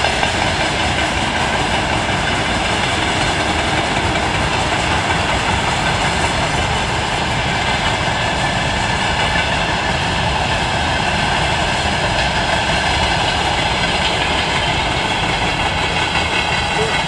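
Freight train of covered hopper wagons rolling past, a steady noise of wheels running on the rails with no break.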